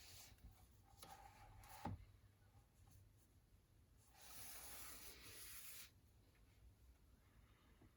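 Faint handling of a vinyl record's packaging: a light knock about two seconds in, then a sliding rub lasting about a second and a half past the middle.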